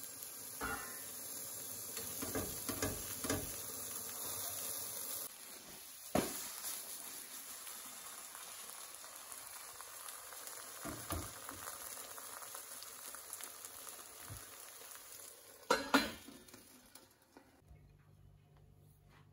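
Egg and tomato frittata sizzling steadily in a non-stick frying pan, with a few knocks and clatters as the pan is handled, the loudest a pair of knocks near the end. The sizzling then stops.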